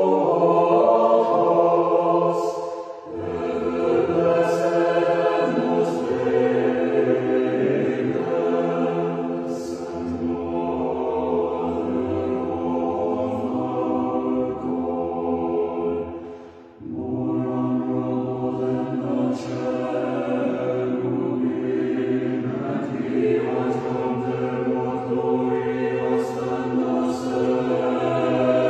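A choir singing slow sacred chant in long-held chords, pausing briefly between phrases about three seconds in and again near the middle.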